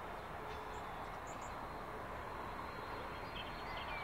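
Distant Pacific National BL and G class diesel locomotives running at low throttle as they move slowly along the siding: a steady, even rumble. Short bird chirps come about a second in and again near the end.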